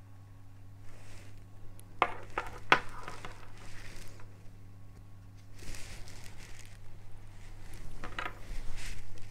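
A black USB cable being handled on a wooden table: its plug ends tap and click against the tabletop a few times about two seconds in, with rustling as the cable is uncoiled. Near the end there is more clattering as the cable is put down.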